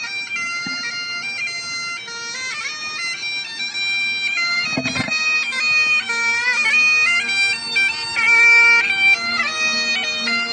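Bagpipes playing a tune over steady drones, the melody moving in steps with quick grace-note flourishes.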